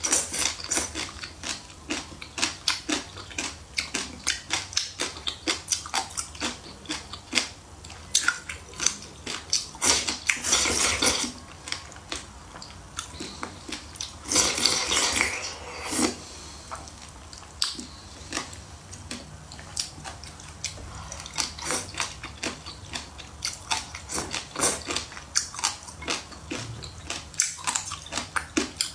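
Close-up crunching as a person chews crisp pickled cucumber peel, many sharp crunches in quick succession. There are two longer slurps of thin rice porridge from a bowl, about ten and fifteen seconds in.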